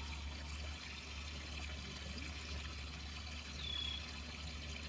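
Steady pouring, trickling water over a low steady hum, with one brief high whistle about three and a half seconds in.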